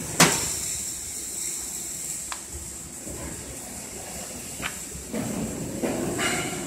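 Steady factory background with a constant high hiss, broken by a sharp, loud click just after the start, two lighter ticks a couple of seconds apart, and a short clatter near the end.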